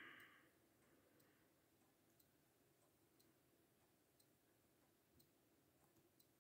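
Near silence: a faint hiss with soft ticks about once a second; no engine sound is heard.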